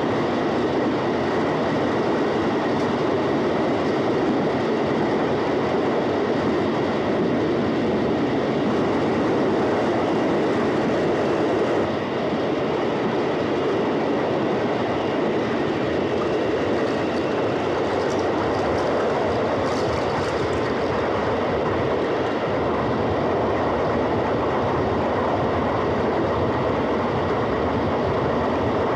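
LNER A4 Pacific steam locomotive and its express train running at speed, a loud, steady rumble with a faint clickety-clack of wheels on rail joints.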